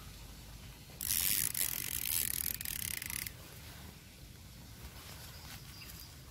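Spinning fishing reel's gears and ratchet clicking rapidly as the line is wound. It starts suddenly about a second in and cuts off about two seconds later.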